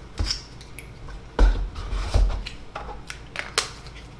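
Small plastic parts of a vape pod kit being handled: a series of light clicks and taps, with a louder knock about a second and a half in.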